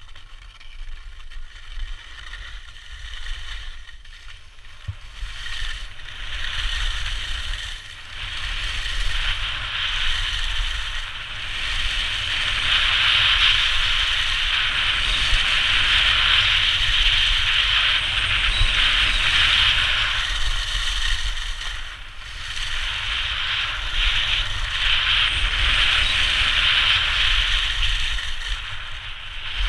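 Skis scraping and carving over firm groomed snow, a steady hiss that swells and fades from turn to turn and grows louder as speed builds over the first several seconds, with a low wind rumble on the microphone underneath.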